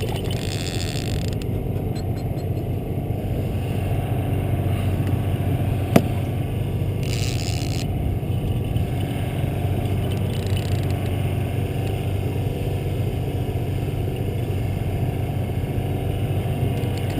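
Boat motor running steadily at low speed, a constant low hum. A single sharp knock comes about six seconds in.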